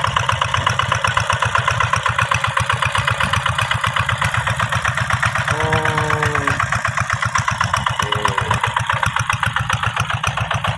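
Single-cylinder diesel engine of a walk-behind two-wheel tractor running steadily while it pulls a furrowing and seeding implement through tilled soil. Each firing comes through as a rapid, even beat.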